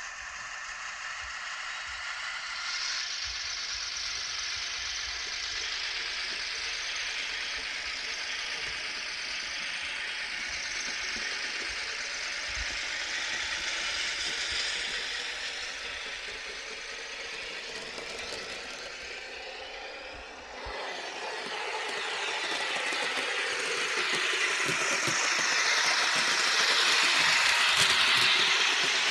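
Viessmann H0-scale motorised low-side wagon running along model railway track, a steady mechanical rattling run. It dips briefly about twenty seconds in and grows louder near the end.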